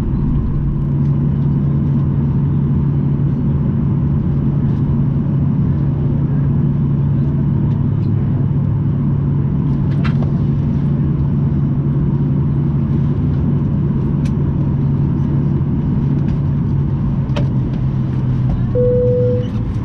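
Steady drone of a Boeing 737-900ER's cabin after landing: the engines and air system are running, with a constant low hum underneath. A brief single tone sounds near the end.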